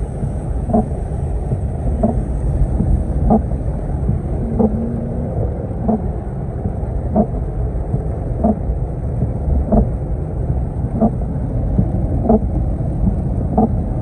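Steady low rumble with a short, pitched beep repeating evenly about every one and a quarter seconds.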